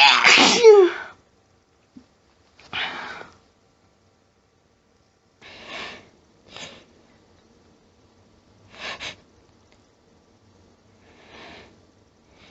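A person's harsh, throaty sneeze right at the start, part of a sneezing fit set off by a persistent nasal tickle. It is followed by five short, quieter breathy sounds a couple of seconds apart.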